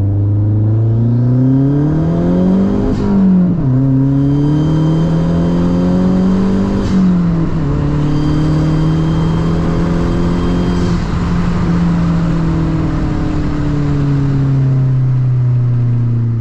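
A car engine pulling through the gears: its pitch climbs, drops sharply at a shift about three seconds in and again about seven seconds in, then holds at a steady cruise that eases slowly lower.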